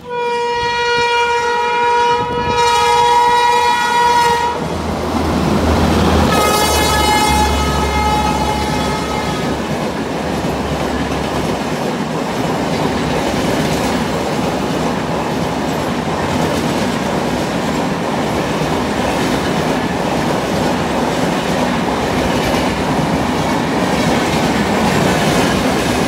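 Electric locomotive horn sounding a long blast of about four seconds, then after a short break a second blast on a different, higher-sounding chord for about three seconds. The express then runs past with a steady rumble and clickety-clack of coach wheels over the rail joints.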